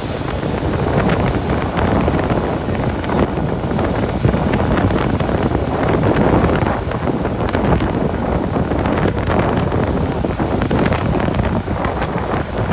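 Wind buffeting the microphone of a moving motorbike: a loud, steady rush and rumble, mixed with the noise of traffic on a wet road.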